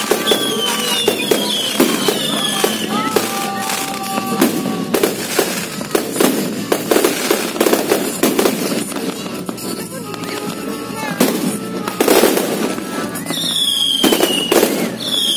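Fireworks display: a dense run of bangs and crackling from aerial shells bursting. Several short whistles falling in pitch come in quick succession at the start and again near the end.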